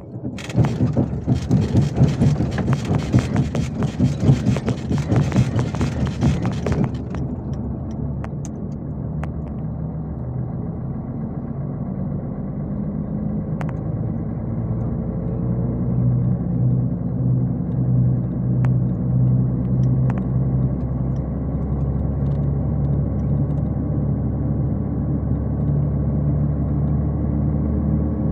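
Cabin sound of a MAZ-251 intercity coach on the move: the engine and road noise make a steady low drone. For about the first seven seconds a loud rushing hiss lies over it, then cuts off abruptly and leaves the low engine hum.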